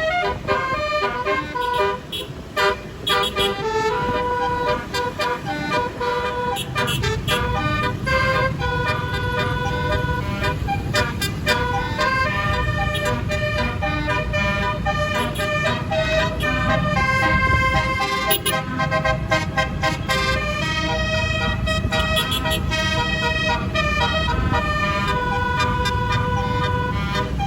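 A bus's multi-note 'basuri' telolet horn playing a tune, one held note after another at changing pitches, over the low rumble of the bus engine and traffic.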